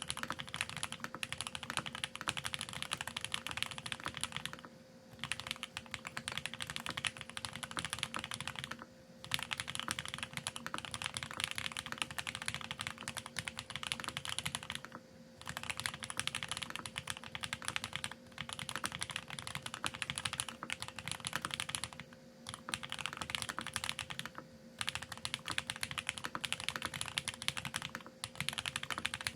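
Fast typing on a custom Geonworks F1-8X mechanical keyboard with lubed TTC Speed Silver v2 linear switches, an aluminium plate and GMK ABS keycaps. Dense runs of keystrokes are broken by about five short pauses.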